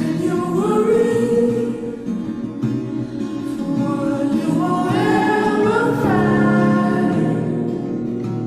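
Background music: a song with a sung vocal line over soft instrumental accompaniment.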